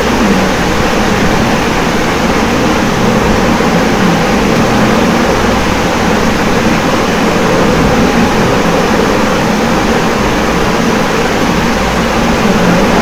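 Steady loud rushing noise with a faint low hum underneath, even throughout with no breaks or knocks.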